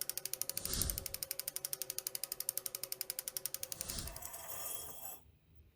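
Rapid, even mechanical clicking like a ratchet, about a dozen clicks a second, with a low thump near the start and another about four seconds in; the clicking fades out about five seconds in.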